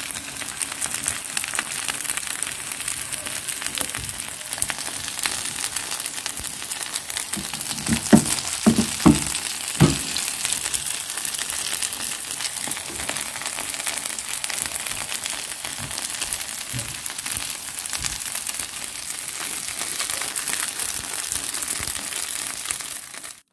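Breaded patties shallow-frying in hot oil in a pan: a steady crackling sizzle. A few louder knocks come about eight to ten seconds in.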